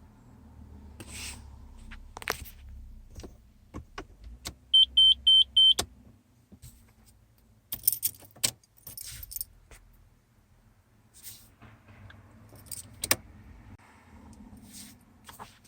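Keys jangling and clicking on and off, with a quick run of about five short, high electronic beeps a little under five seconds in.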